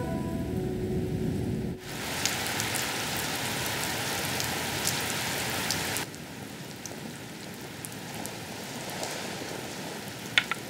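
Steady rain falling, starting abruptly about two seconds in after a low rumble dies away. It is heaviest for the next few seconds, then softer. Two sharp clicks come near the end.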